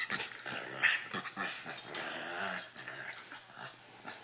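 A Rottweiler puppy and another puppy growling and grumbling as they play-fight, loudest in the first two and a half seconds and quieter toward the end.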